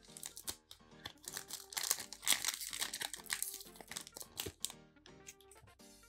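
Foil Pokémon booster pack wrapper crinkling as it is handled and scrunched, over light background music. The crinkling stops about three-quarters of the way through, leaving the music.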